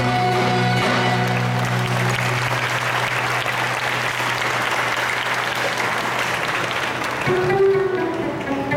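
A folk band's final held note ends about two seconds in and the audience applauds; near the end string instruments start playing again.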